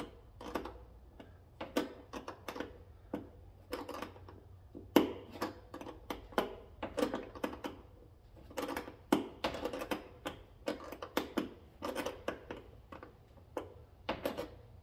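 A 3/8-inch ratcheting wrench clicks in short irregular runs of sharp clicks as it tightens a nut on a tank sensor probe.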